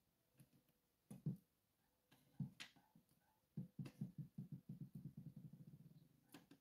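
Faint clicks and taps of steel tweezers and tiny lock pins and springs on a plastic pin tray, while a pin-tumbler core is being taken apart. A run of quick taps about halfway through speeds up and fades over some three seconds, and a sharper click comes near the end.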